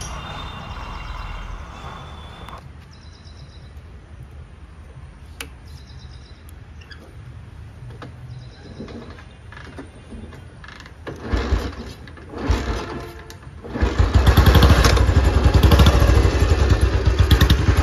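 Royal Enfield Bullet 350's single-cylinder engine coughing twice on short tries about eleven and twelve seconds in, then catching near the end and running with a steady beat. The noise in the running engine is from the timing gears, which the mechanic says need setting; otherwise the engine is sound.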